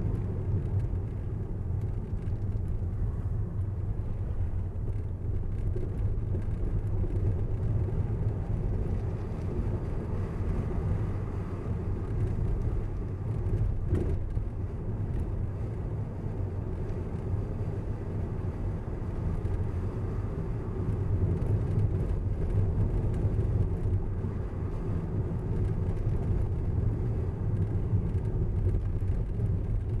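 Car driving along a road: a steady low rumble of tyres and engine. One short click about halfway through.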